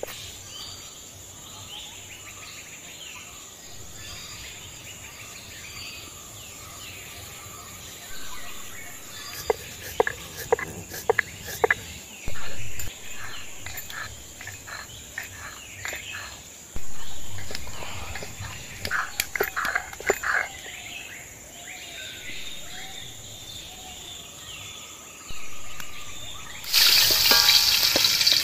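A steady insect drone with bird calls. Runs of sharp knocks come about ten seconds in and again around twenty seconds. Near the end a loud sizzle starts suddenly as stinging catfish (singhi) fry in hot oil in a metal wok.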